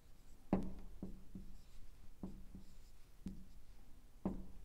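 Marker pen writing on a whiteboard: several short taps and strokes, unevenly spaced, as letters and dots are put down.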